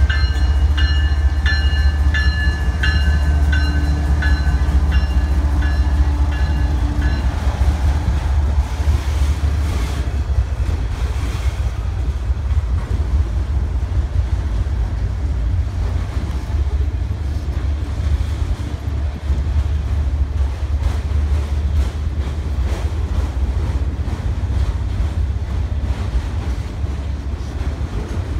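A BNSF freight train of autorack cars passing close by: a heavy, steady rumble with the wheels clacking over the rail. A warning bell rings at about two strokes a second as the diesel locomotive goes by, and stops about seven seconds in.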